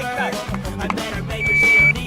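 Background music with a steady beat. About a second and a half in, a shot timer sounds its start signal: one loud, steady, high beep lasting about half a second, the signal for the shooter to begin the course of fire.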